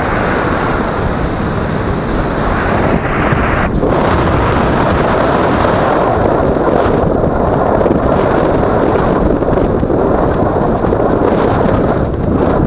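Wind rushing over the camera's microphone in paraglider flight: a loud, steady, gusty rush of air noise.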